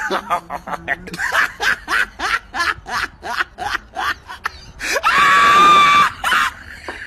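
Rapid bursts of laughter, then a loud, high-pitched scream held for about a second, around five seconds in, before the laughter picks up again.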